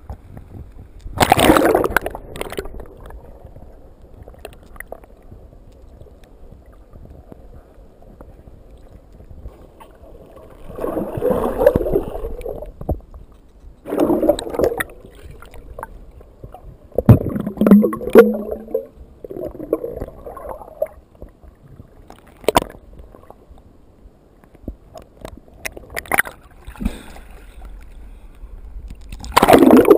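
Muffled underwater sound heard through an action camera's waterproof housing: water gurgling and rushing past in a handful of louder surges as the swimmer moves, with quieter stretches between them.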